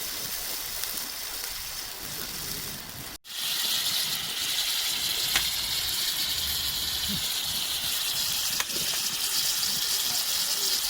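Steady rushing of a clear mountain river's flowing water. It cuts out for an instant about three seconds in and comes back louder and hissier.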